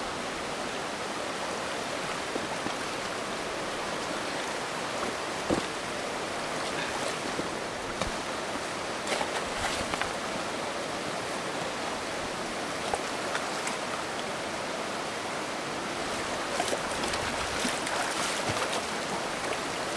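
Shallow river water rushing over stones in a steady wash, with a few faint clicks.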